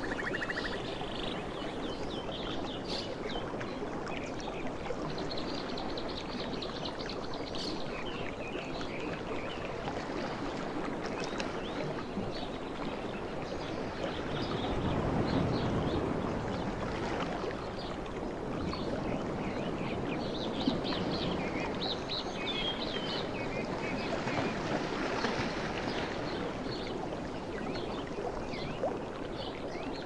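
Sea waves washing onto a shore in a steady wash of surf, one wave swelling louder about halfway through. Scattered high chirps sound over the surf.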